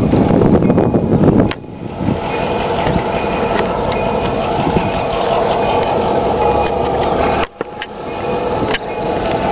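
Diesel locomotive engine, an EMD GP9, running steadily out of sight, with some wind rumble on the microphone. The sound dips sharply about a second and a half in and again near the end, then comes back.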